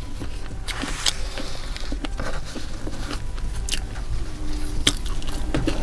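Close-miked eating sounds: chewing a mouthful of chicken taquito, with sharp mouth and lip clicks about once a second.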